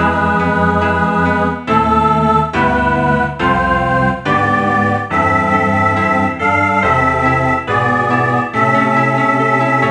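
Computer (MIDI) playback of a four-part choral arrangement in a synthesized organ-like sound: sustained block chords with no vibrato, moving to a new chord about once a second, the last one held longer near the end.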